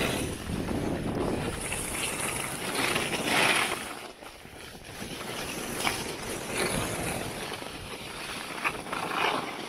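Alpine skis sliding and carving on snow, the scraping hiss swelling and fading with the turns, mixed with wind rushing over the microphone.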